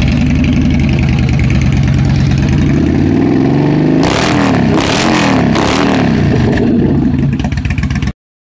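Yamaha V-Star 950's air-cooled V-twin idling through Cobra slash-cut exhaust pipes, blipped three times about four seconds in, each rev rising and falling back to idle. The sound cuts off suddenly near the end.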